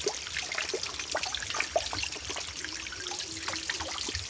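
Spring water trickling and dripping off a wet rock face into a folded-leaf cup: a steady splashing with many small drips.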